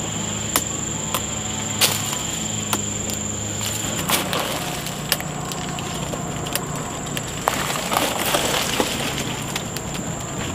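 Steady high-pitched insect drone, with sharp clicks and snaps scattered through and a low hum that comes and goes.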